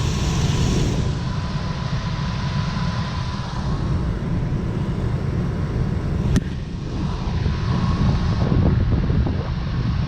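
Rooftop HVAC unit's belt-driven blower running steadily on a newly fitted belt: a steady low rumble with a thin hum on top and no belt squeal. One sharp click about six seconds in.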